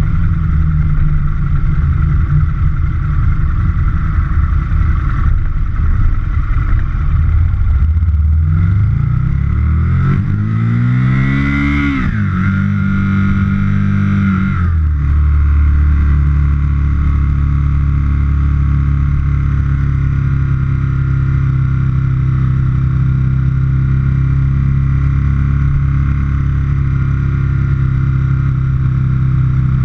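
Aprilia Futura's 1000 cc V-twin engine pulling steadily under way. About eight seconds in its pitch climbs as it revs up, drops sharply near twelve seconds and again near fifteen as it changes up through the gears, then runs at a steady, lower pitch.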